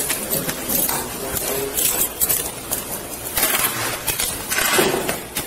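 Steel handcuffs clinking and rattling as they are taken off and set down on a bench, in short irregular clicks, with a couple of louder scuffs in the second half.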